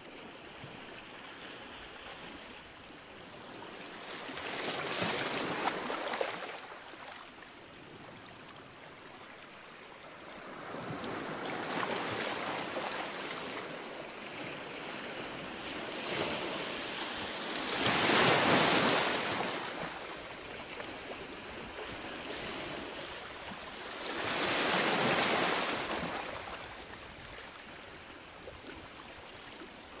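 Sea waves washing onto the shore: four swells of surf several seconds apart, each building and falling away, the third the loudest.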